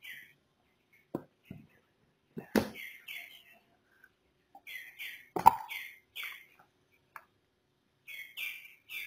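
Hands handling the LG V30's black retail box, lifting off the lid and setting box parts down with a few sharp knocks, the loudest about halfway through. A bird chirps in short high calls again and again throughout.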